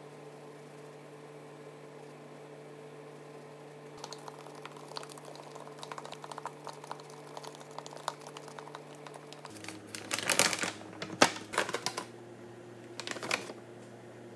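Steady room hum, then spice shakers shaken over raw chicken on a plastic cutting board. A patter of light, quick ticks starts about four seconds in, followed by a few louder rattling shakes.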